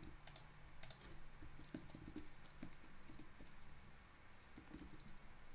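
Faint typing on a computer keyboard, with irregular key clicks.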